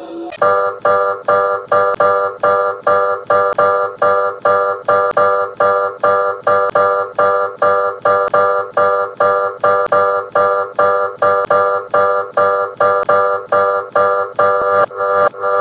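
Emergency alert alarm tone: a loud electronic chord of several steady pitches, pulsing about two and a half times a second, that starts suddenly and keeps a steady beat.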